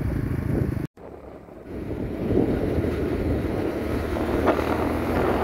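Wind buffeting the microphone over a low rumble of road and engine noise from riding along a road. The sound drops out briefly about a second in, then the rumble runs on steadily.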